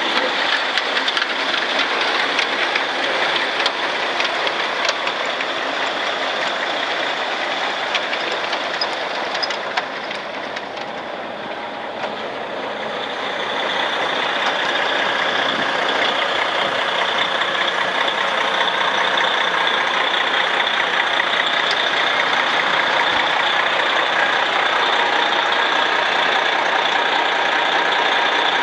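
A Western Star 4900XD truck's diesel engine idling steadily. The sound drops a little about ten seconds in, then steadies again.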